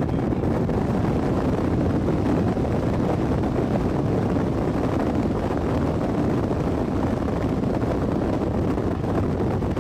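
Steady low rumbling noise of wind and a vehicle in motion, with no distinct events.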